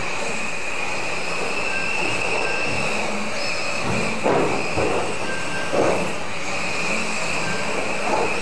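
Several electric RC mini touring cars racing on a carpet track: a steady high whine of their motors and gears over the hiss of tyres on carpet, with a few short, louder noises around the middle.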